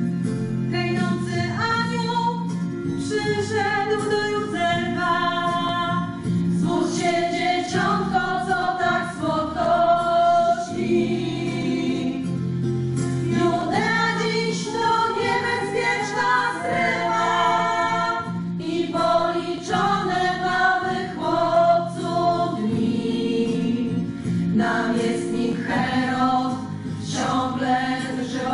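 A women's choir singing, with a few voices on microphones leading, over held low accompaniment notes.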